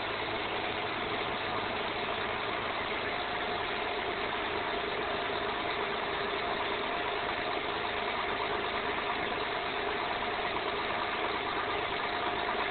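2008 Honda Accord's V6 engine idling steadily on a cold engine, with a constant hum and a faint steady high tone above it.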